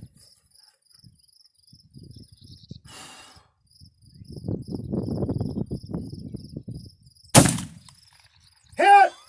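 A single rifle shot about seven seconds in from an 1871/84 Mauser, an 11 mm black-powder single-shot rifle, sharp and then ringing out briefly. Before it there is a low rustling noise, and a short call follows near the end. Insects chirp steadily throughout.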